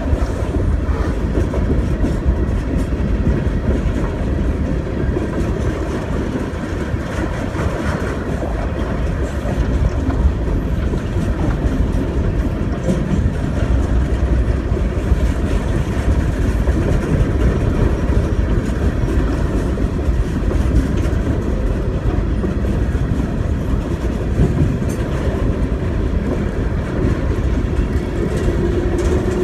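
A CSX empty coal train's hopper cars rolling past steadily, wheels clicking over the rail joints. A steady tone comes in near the end.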